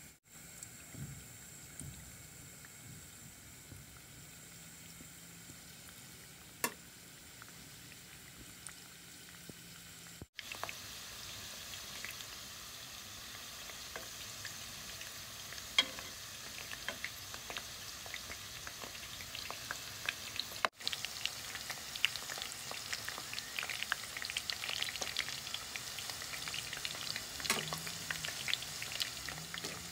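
Chicken spring rolls deep-frying in hot oil in an aluminium pot: a steady sizzle full of small crackling pops that grow louder and denser from about a third of the way in. There are a few sharp clicks, and the sound drops out briefly twice.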